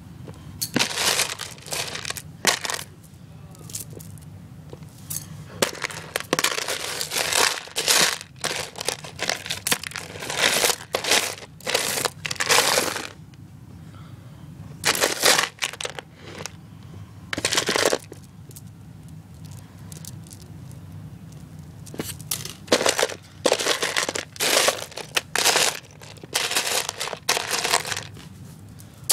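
Plastic pony beads and beaded kandi bracelets rattling and clicking against each other and the plastic bin as a hand rummages through them, in bursts of one to a few seconds with short pauses between.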